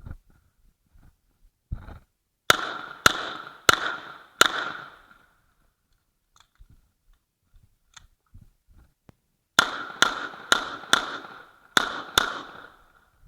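Uzi Pro 9 mm pistol fired in two strings of shots, each shot with a ringing tail: four about half a second apart, then after a pause of about five seconds six more.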